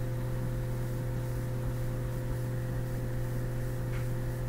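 Steady low electrical hum with an even background hiss.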